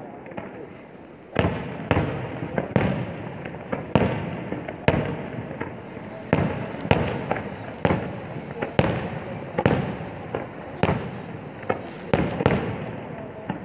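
Aerial fireworks shells bursting in a rapid, irregular barrage of bangs with a rumble between them; the barrage sets in about a second and a half in, after a short lull.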